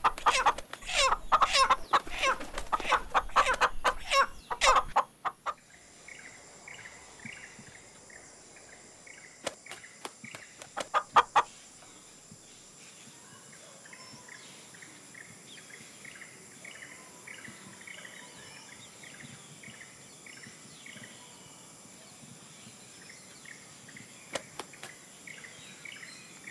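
A hen squawking loudly and rapidly while a rooster mounts her, the calls stopping about five seconds in. After that, quiet ambience with a steady high insect drone and faint bird chirps, broken by a short burst of clucking about ten seconds in.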